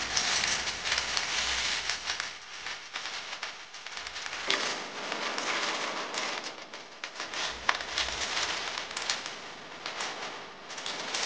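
Clams in their shells sizzling as they hit a hot stainless steel pan of sautéed garlic and chilli, a steady crackling hiss, with frequent clacks of shells knocking against each other and the pan as a spatula stirs them.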